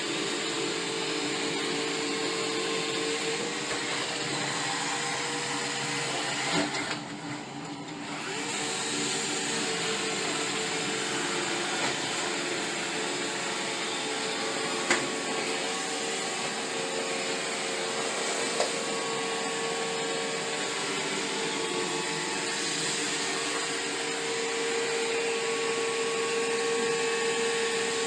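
iRobot Roomba i7+ robot vacuum running: a steady whir with a humming tone. It dips briefly about seven seconds in, and a few short knocks sound along the way.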